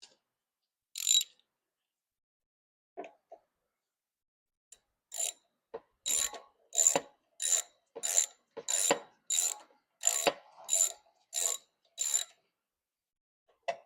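Ratchet wrench clicking in back-and-forth strokes: a single stroke about a second in, then about a dozen strokes in a steady rhythm, each a bit over half a second apart, running down hand-started bolts.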